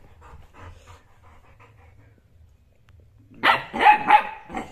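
Small dog barking, a quick run of about four high-pitched barks starting about three and a half seconds in, after a quiet stretch with only faint short sounds.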